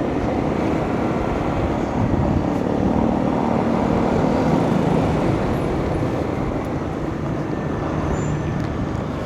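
Steady running noise of a moving road vehicle: engine hum under a broad haze of road and wind noise, holding an even level throughout.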